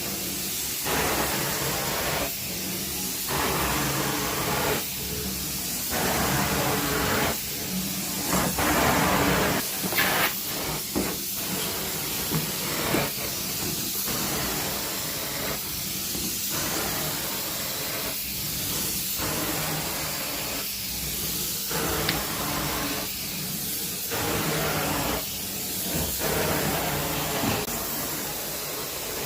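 Vacuum cleaner running over carpet with a steady hissing rush, swelling and easing in regular back-and-forth strokes about every two to three seconds as it picks up pet hair.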